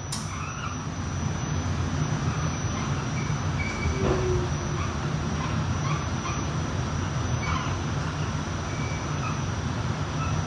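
R46 subway train running as a steady low rumble, with a thin high whine throughout and a short squeal-like tone about four seconds in.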